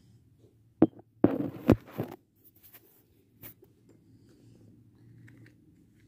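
Metal spoon knocking and scraping against a plastic tub while stirring flour and water into a dough: a few sharp knocks and a short burst of scraping about a second in, then only faint ticks over a low room hum.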